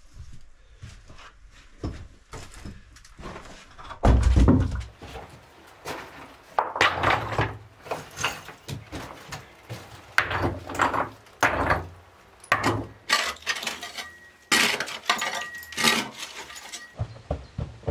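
Stones and broken concrete blocks clattering and clinking as rubble is moved and knocked with a hand tool, in a run of sharp, irregular knocks, with one heavy thud about four seconds in.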